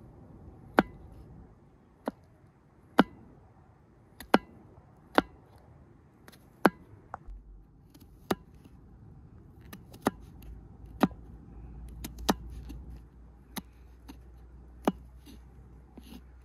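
Kitchen knife slicing garlic cloves on a wooden cutting board: a sharp knock of the blade on the board with each cut, about sixteen slow, unevenly spaced strokes.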